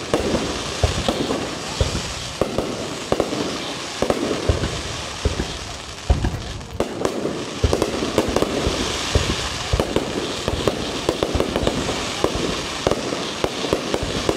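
Fireworks going off overhead: a continuous irregular run of bangs, several a second, with crackling. The crackling thickens a little past the middle.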